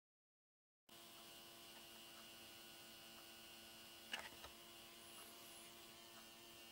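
Faint, steady electrical hum made of several fixed tones, starting after about a second of dead silence, with a single short click about four seconds in.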